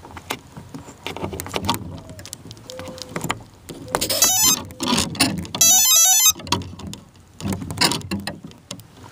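Handling clicks and knocks, with two short runs of rapidly stepping electronic beep tones about four and six seconds in. The beeps are the power-up arming tones of a Castle Creations Phoenix 25 brushless ESC, played through the E-flite 380 outrunner motor; the motor itself is not yet spinning.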